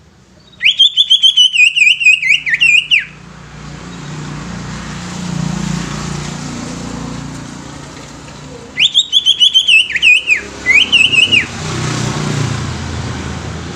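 Cucak ijo (green leafbird) singing two bursts of fast, loud, repeated whistled notes, each two to three seconds long, one near the start and one about nine seconds in. A low rumble of passing motor traffic rises and falls between and after the bursts.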